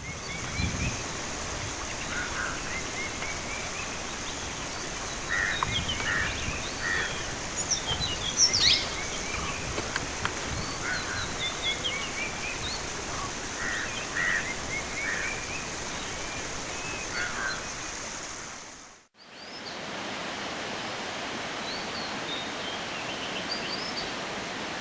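Steady rush of flowing water under a continuous high-pitched drone, with several birds calling repeatedly, most of them through the middle. About three-quarters of the way through the sound drops out for a moment; afterwards the high drone is gone and the water continues with only a few bird calls.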